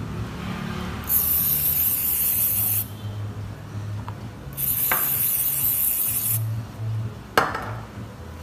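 Aerosol spray can hissing in two bursts of about a second and a half each, sprayed onto a plastic phone back cover. A sharp click follows near the end.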